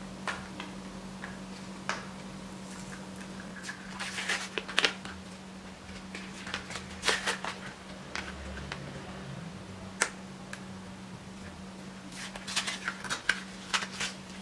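Packaging of a V-Gen Hyper NVMe M.2 SSD being opened by hand: scattered clicks, taps and short rustles of plastic and card. A steady low hum runs underneath.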